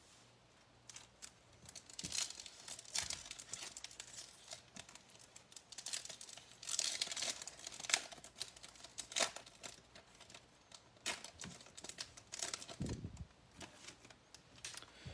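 A baseball card pack wrapper being torn open and crinkled: irregular crackling and tearing that starts about two seconds in, with a dull thump near the end.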